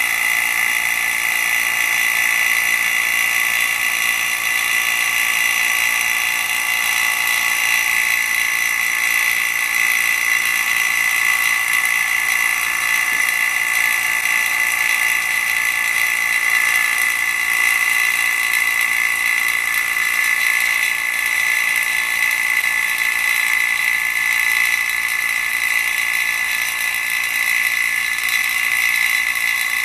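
Electric vacuum pump running steadily, a constant high-pitched drone, as it evacuates a resin-filled vacuum chamber to about 20 inches of mercury during vacuum stabilizing of wood.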